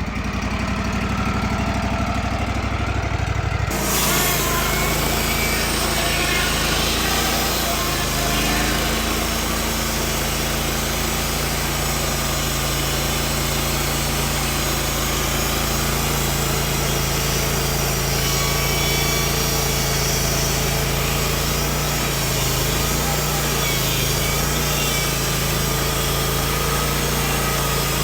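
Wood-Mizer LT15WIDE portable sawmill's engine running just after a restart. About four seconds in its sound changes abruptly to a fuller, hissier running note, as when the sawmill is throttled up to drive the band blade, and it then runs steadily.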